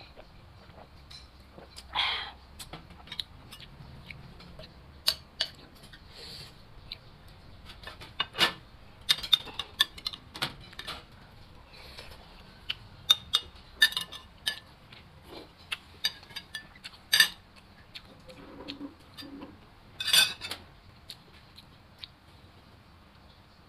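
A metal spoon clinking and scraping against glass and ceramic bowls during a meal: scattered sharp clinks, thickest in the middle, with two louder rattles, one about two seconds in and one near the end.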